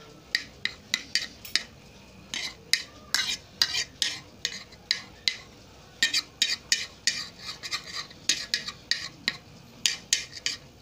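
Metal spoon tapping and scraping against a plate while pressing a mound of fried rice into shape: a quick, irregular series of clinks and scrapes.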